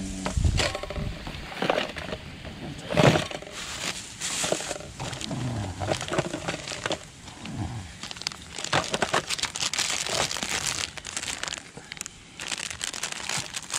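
Plastic packaging crinkling and gear clattering in a plastic basket as items are handled and packed, in a series of irregular short rustles and knocks.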